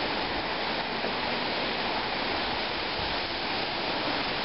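Heavy rain pouring down hard, a dense, steady hiss of falling water.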